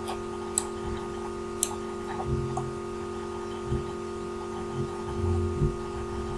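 Two sharp computer mouse clicks, about a second apart, over a steady electrical hum, with a few soft low thumps later on.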